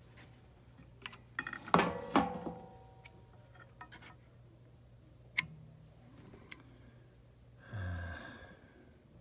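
Metallic clanks and clicks, with a brief ringing, from metal parts and tools being handled. A clattering cluster comes about two seconds in, a single click mid-way and a short scrape near the end, over a steady low hum.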